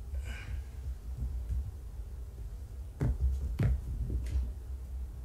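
Steady low hum, with two sharp clicks about three seconds in and a softer one just after, from a small object being handled in the hands.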